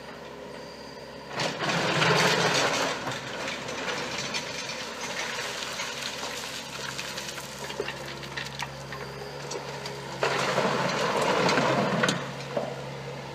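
A diesel mini excavator's engine runs steadily with a low hum. It grows much louder and noisier twice, about a second and a half in and again near the end, as it works under load.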